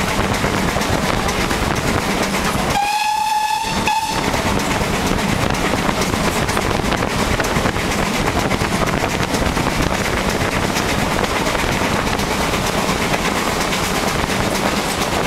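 GWR Manor-class steam locomotive 7828 Odney Manor climbing with its train, heard from alongside on the moving train as a steady rush of running noise and wind. About three seconds in its whistle sounds once for about a second, breaks off and gives a short second blip.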